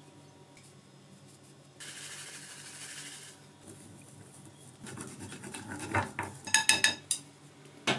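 About two seconds in, a soft hiss of seasoning sprinkled into a ceramic bowl. From about five seconds in, wooden chopsticks stir batter, clicking and knocking against the bowl, loudest around six to seven seconds.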